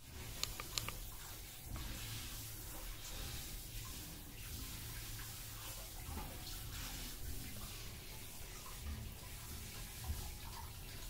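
Steady running water, with a few sharp clicks in the first second.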